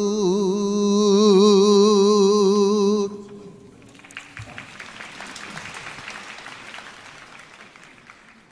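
A man's shigin chanting voice holds the final long note of the poem with a wide, wavering vibrato and stops about three seconds in. Audience applause follows and fades away near the end.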